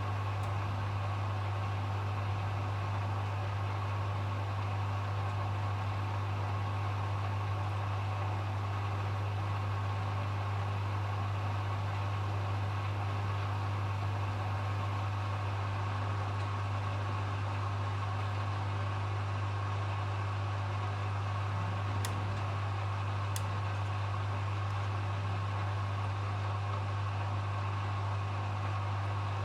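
Hoover HW411AMC washing machine in its final spin, the drum spinning at a steady high speed with a low hum and a fainter motor whine. Two faint ticks come about three-quarters of the way through.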